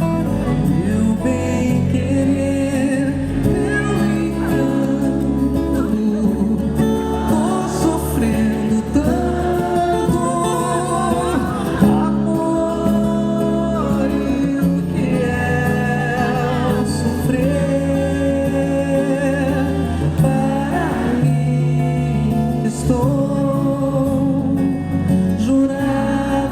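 Live music: a sung melody with vibrato over sustained instrumental accompaniment, guitar among it.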